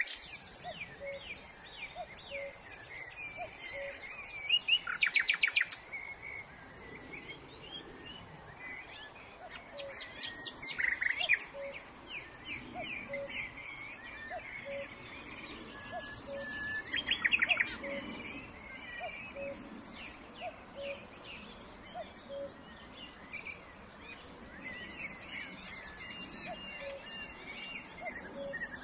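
Songbirds singing and calling: several bursts of rapid, high trills, loudest about five, ten and seventeen seconds in, among scattered chirps and warbles. A faint low pip repeats about once a second underneath.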